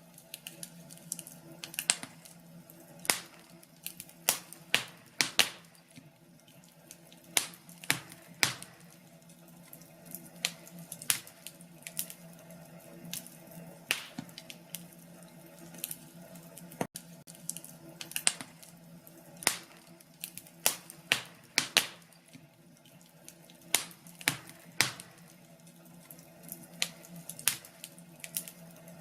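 Wood fire crackling, with irregular sharp pops about one or two a second over a faint steady low hum.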